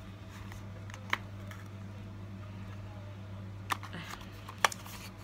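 Fingernails picking at the seal of a small cardboard cosmetics box, giving three short sharp clicks, the last and loudest near the end, over a steady low hum.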